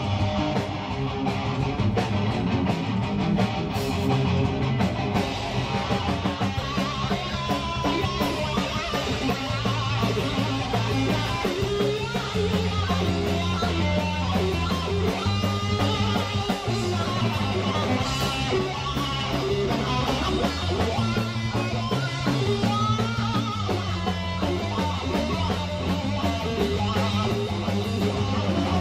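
Punk rock band playing live: electric guitars and bass guitar over a drum kit with a steady beat of drum and cymbal hits.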